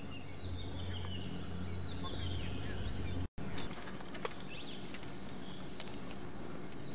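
Small birds chirping over a low steady hum. The sound breaks off sharply about three seconds in, and then come rustling and light clicks as a rope is handled in dry grass, with a few more faint bird chirps.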